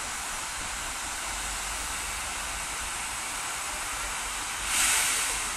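Hudswell Clarke steam locomotive Slough Estates No. 3 hissing steadily as it creeps forward, with a brief, louder rush of hiss about five seconds in.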